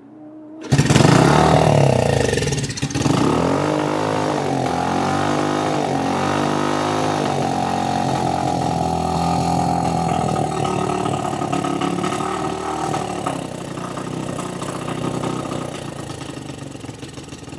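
Yamaha TT-R90 dirt bike's small four-stroke single-cylinder engine catching on a kick-start about a second in and running, its revs rising and falling at first and then settling into a steadier idle as the new Mikuni carburetor's idle is adjusted with a screwdriver.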